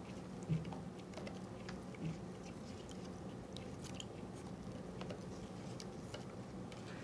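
Wooden craft stick stirring dye solution in a plastic cup: faint, scattered clicks and scrapes of the stick against the cup wall.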